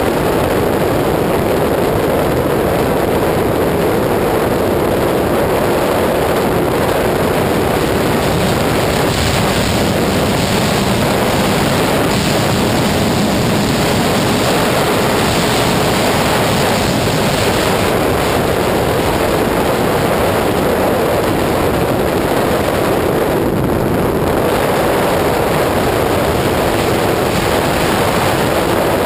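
Heavy wind rush over the microphone from a 2001 Suzuki GSX-R 600 sport bike running at high speed on the highway, with the engine's steady drone underneath, settling a little lower in pitch near the end as the bike slows.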